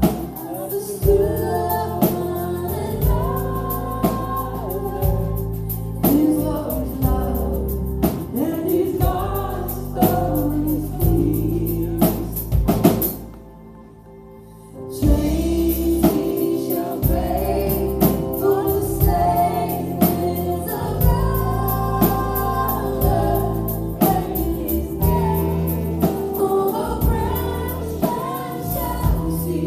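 Live church worship band: female voices singing over bass, guitars, keyboard and drums. About halfway through the band stops for roughly two seconds, then comes back in.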